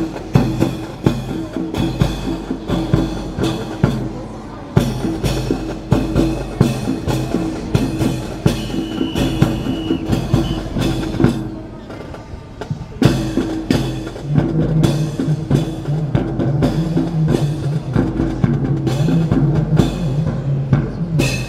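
Music with a steady drum beat and sharp percussive knocks, briefly dropping back about halfway through before picking up again.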